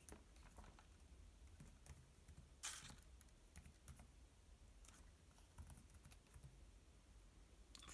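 Near silence with faint, scattered small clicks, and one brief rustle about two and a half seconds in.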